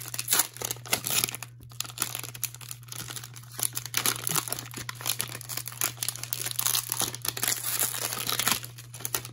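Cellophane wrapper of a Panini Mosaic football cello pack crinkling and tearing as it is pulled open by hand, a dense run of crackles that is loudest in the first second.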